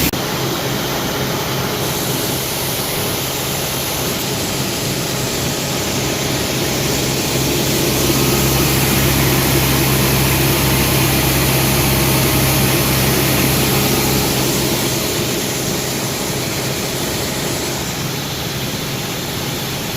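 Engine running steadily under a dense rushing hiss while a wagon of shelled corn is unloaded into a grain bin by auger. It grows a little louder for several seconds mid-way, then settles.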